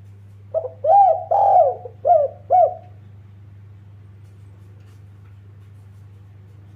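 Spotted dove cooing: one phrase of about five coos, a short first note then longer arched ones, starting about half a second in and ending near three seconds. A steady low hum runs underneath.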